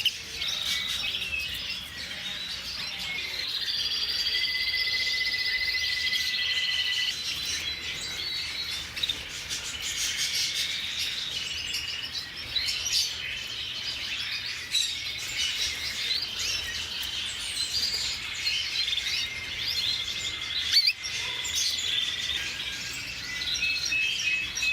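Many canaries singing at once, a continuous tangle of overlapping rapid trills, warbles and chirps.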